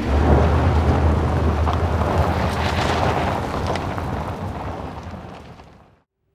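A loud, deep rumble that surges at the start, holds for a few seconds and slowly fades, then cuts off abruptly near the end.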